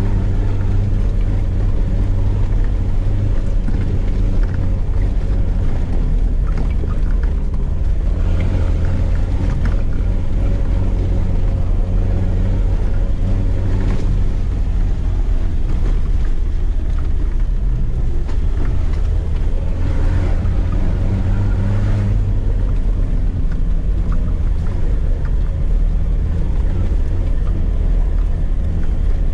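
Land Rover Defender 90's engine running at low speed over a rough dirt track, heard from inside the cab; the engine note rises and falls with the throttle, with a dip about three-quarters of the way through.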